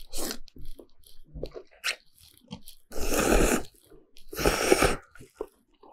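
A person slurping noodles of beef noodle soup: two long, loud slurps about three and four and a half seconds in, with smaller chewing and wet mouth sounds between.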